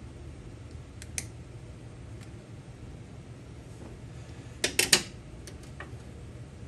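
Pliers clicking and clinking on small metal parts of the engine's ignition points: a couple of light clicks about a second in, then a quick cluster of sharper clinks a little past the middle, over a steady low hum.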